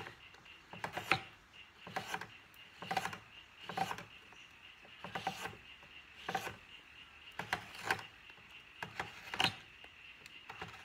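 Bent carving gouge scooping out the bowl of a wooden spoon: a series of short scraping cuts through the wood, roughly one a second.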